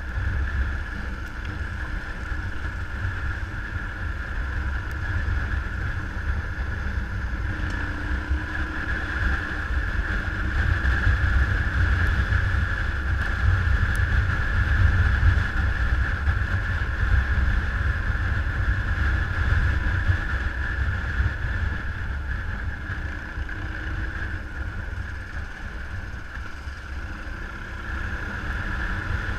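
An engine running steadily under heavy wind rumble on the microphone.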